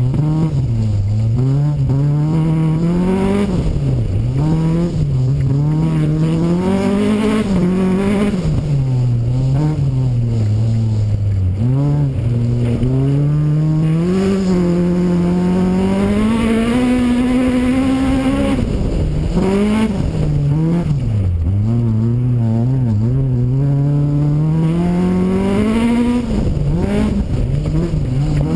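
Rally car's engine revving hard on a gravel road, its pitch climbing through each gear and dropping sharply at the shifts and lifts, over a steady rush of tyre and gravel noise.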